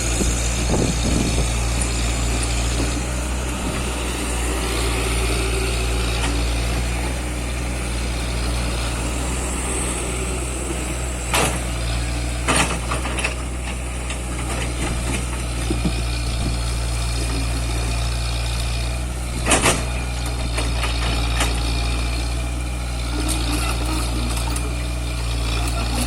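Komatsu PC78UU mini excavator's diesel engine running steadily at work, with a few sharp metallic knocks: two close together around the middle and a louder one later.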